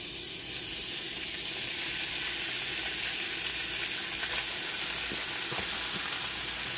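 Rice frying in a hot skillet: a steady sizzle, with a few light clicks of a utensil stirring in the second half.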